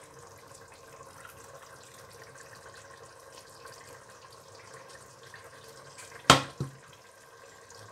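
Mutton yakhni stock being poured from a tilted steel pot into another pot, a faint steady trickle of liquid, with one sharp metal clank of the pots about six seconds in.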